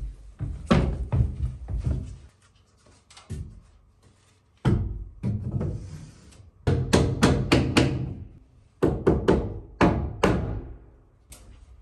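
Hammer driving nails into wooden roof boards: sharp strikes in short runs, several in quick succession in the middle, over background music.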